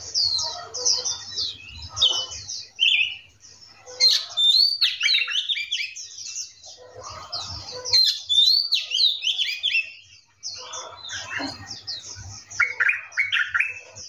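Several small songbirds chirping and calling together in fast, overlapping runs of high chirps, broken by bursts of quick downward-slurred whistled notes. The busiest, loudest bursts come about four and eight seconds in, and again near the end.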